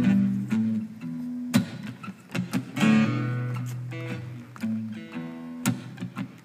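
Acoustic guitar strumming the opening chords of a song, each chord struck and left to ring about every second or so.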